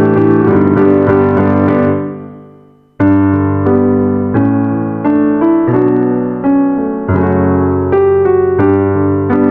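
Background piano music with a melody of struck notes. It fades out about two seconds in and starts again abruptly a second later.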